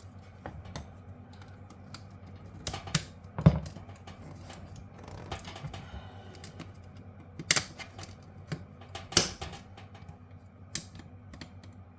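Switches being prised and popped out of a plastic casing: scattered sharp clicks and knocks of plastic and hand tools. The loudest comes about three and a half seconds in, with more around seven and a half and nine seconds.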